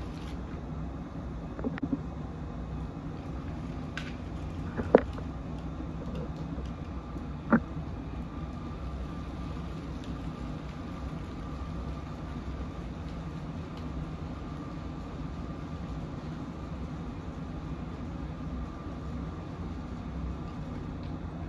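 Battery-powered Lego train running on plastic track, its motor and wheels making a steady low rumble and hum. A few sharp clicks come in the first eight seconds, the loudest about five seconds in.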